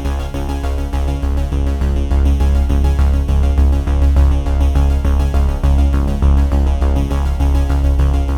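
Electronic background music with a steady beat, a heavy bass line and synthesizer chords.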